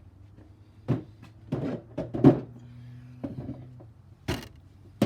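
Several irregular knocks and clanks of hand tools against metal, the loudest a little past two seconds in, over a steady low hum.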